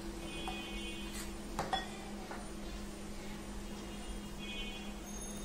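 Handheld metal mesh sieve shaken and tapped over a bowl while sifting flour, giving a few light clinks and small knocks, the clearest about one and a half to two seconds in, over a steady low hum.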